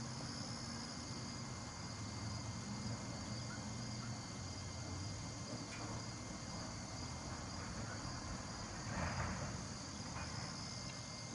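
Insects chirring steadily in a high, even drone over a faint low hum of distant traffic or machinery, with a brief rush of noise about nine seconds in.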